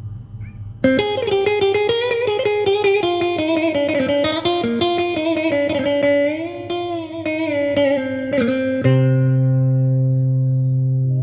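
Yamaha PSR-A5000 arranger keyboard playing its electric guitar voice: a single-note melody with pitch bends, starting about a second in, ending on a held chord for the last couple of seconds.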